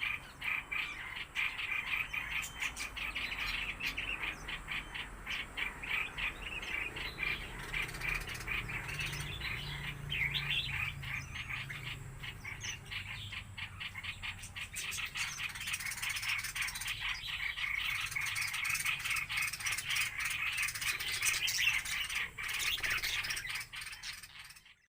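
A flock of small aviary birds chattering and chirping continuously in a dense, overlapping stream of quick calls. It cuts off suddenly near the end.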